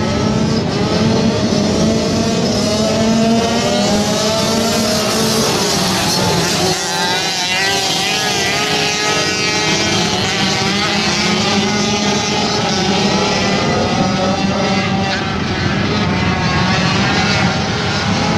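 Several flat-track racing motorcycle engines running hard at once, their pitch rising and falling over and over as they overlap.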